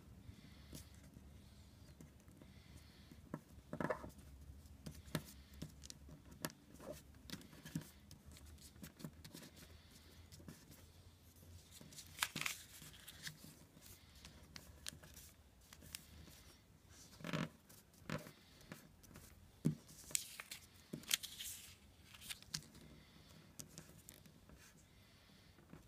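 Origami paper being folded and creased by hand: scattered short rustles and crackles of the sheet, with a few louder swishes as flaps are turned and pressed flat.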